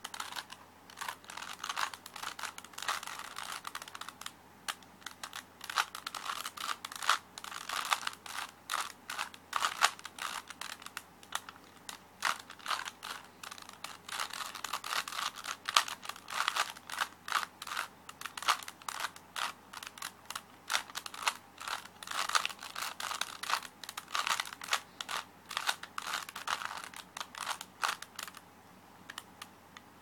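Rubik's cube being turned quickly by hand: a fast, irregular run of plastic clicks and clacks as the layers twist, stopping shortly before the end.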